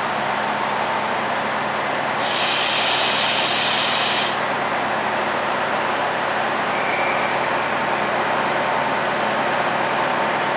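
Diesel trains running, with a Class 68 diesel locomotive drawing slowly in beside a standing Class 168 unit and giving a steady engine drone. About two seconds in comes a loud hiss of compressed air, typical of a train's air brakes, lasting about two seconds.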